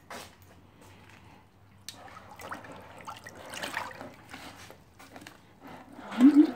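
A steel wheel rim is lowered into a plastic tub of oxalic acid solution, and the liquid sloshes and splashes around it as it sinks. A short, loud, low sound comes near the end.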